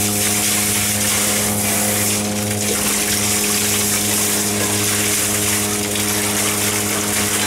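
The electric pump of a recirculating dog-washing system running with a steady hum, while water sprays from its hand-held wand onto a wet dog's coat and splashes into the tub with a constant hiss.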